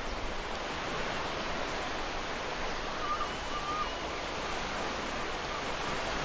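Ocean surf washing onto a beach: a steady, unbroken rush of waves, with a faint brief tone about three seconds in.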